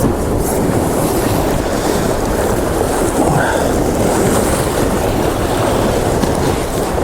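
Sea swell surging against the rocks, mixed with wind buffeting the microphone: a steady, rough, loud noise.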